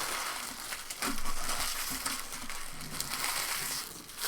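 Foil trading-card pack wrappers crinkling and rustling as packs are torn open and the cards handled, a busy run of small crackles.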